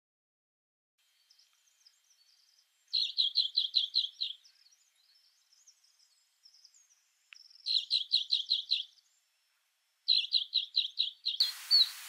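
Alpine accentor singing: three loud runs of rapid, evenly spaced high chirping notes, six to eight in each, with faint twittering between them. A steady hiss comes in just before the end.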